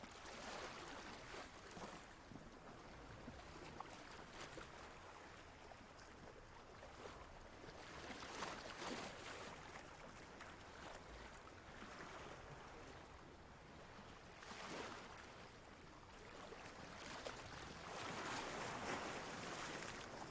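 Ocean waves washing in, the surf swelling and falling back every few seconds, with the biggest surge near the end.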